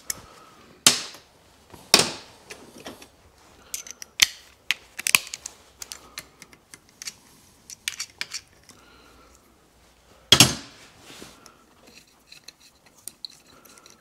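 Metal hand tools and fasteners clinking and clanking during engine teardown, as sockets are swapped and bolts are worked loose. The sharp knocks are irregular, about five loud ones with the loudest about ten seconds in, with runs of lighter ticks between.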